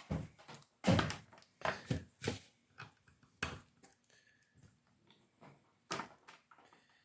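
Handling noise: a run of sharp knocks and clunks as things are moved about on a workbench. The loudest comes about a second in, several more follow over the next few seconds, and a last one comes near the end.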